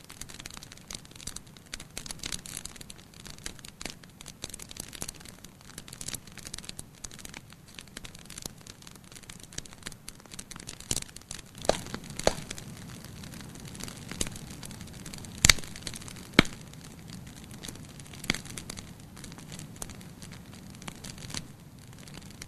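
Wood fire burning in a fireplace: a steady low hiss with irregular crackles and pops. The pops are louder and sharper in the middle, with two loudest snaps about fifteen and sixteen seconds in.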